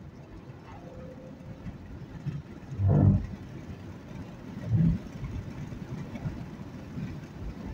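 Road and engine noise inside a moving car at highway speed: a steady low rumble, with two brief, louder low rushes about three and five seconds in.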